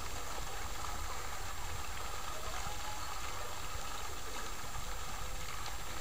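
Pond fountain jet splashing steadily back onto the water, an even rushing of falling water.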